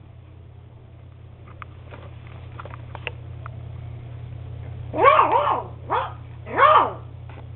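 Eight-week-old beagle puppy barking: a quick double bark about five seconds in, then two more short barks, each rising and falling in pitch. Before the barks there are only a few faint taps.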